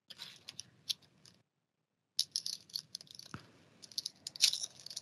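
Foil wrapper of an Upper Deck trading-card pack crinkling and crackling as it is handled, in a run of short crackles with a brief pause about a second and a half in and a light tap a little past three seconds.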